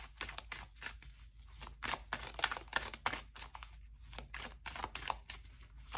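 Tarot deck being shuffled by hand: a quick, irregular run of light card clicks and slaps.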